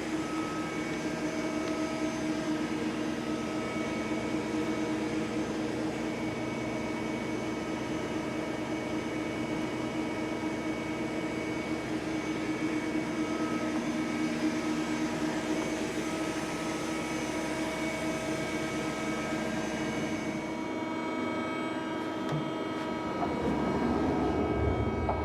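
HWACHEON Cutex 160A CNC turning and milling center running: a steady machine hum and whine made of several steady tones over a noisy hiss. A little over twenty seconds in, the high hiss drops away, and near the end a louder, rougher noise swells up.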